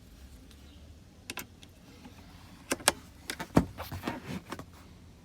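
Sharp clicks and knocks of a cable connector and its plug being handled and pushed into a key-programming machine, a few single clicks first and then a quick cluster, the loudest about three and a half seconds in.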